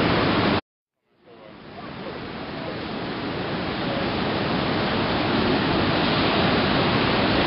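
Heavy surf breaking over a rocky shore, a steady rush of white water. It cuts out abruptly about half a second in, then fades back up over the next few seconds.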